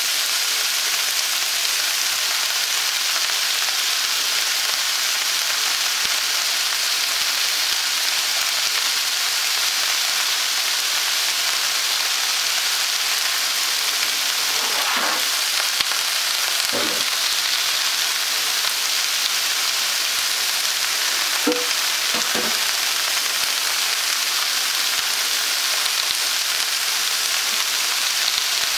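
Vegetables frying in olive oil in a nonstick pan: a steady sizzle. A few brief faint knocks come about halfway through.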